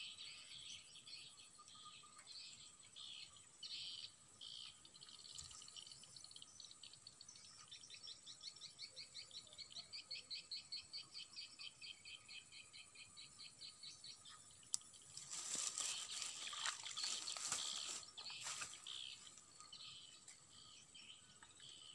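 Faint birds and insects chirping, with a steady run of rhythmic chirps at about four a second through the middle. Near the end comes a few seconds of louder rustling and handling noise.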